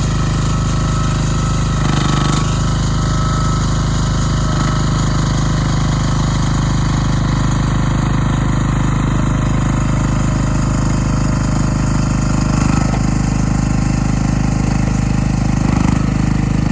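Small engine of a Vario Tech XN08 micro excavator running steadily, its note shifting briefly a few times.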